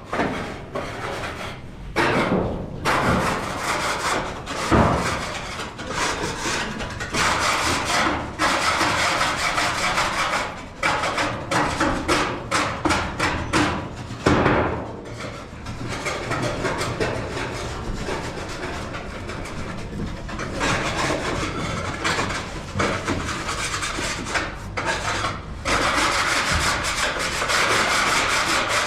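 Rasping and scraping strokes of hand tools at work on the building, running on with short pauses.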